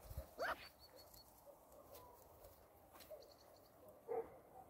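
Cane Corso puppies calling out at a kitten: a short rising yelp about half a second in and a brief bark near the end, with faint high chirps in between.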